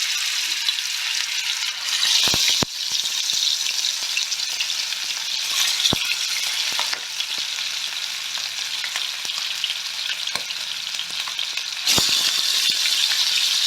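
Pieces of marinated fish sizzling in very hot mustard oil in a frying pan. The sizzle surges louder about two seconds in and again near the end as more pieces go into the oil, with a few sharp clicks.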